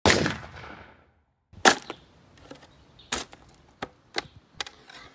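A loud sudden hit at the start that fades over about a second, then a plastic snow shovel digging into soil: several short, sharp scrapes and thuds, the first about a second and a half in the loudest.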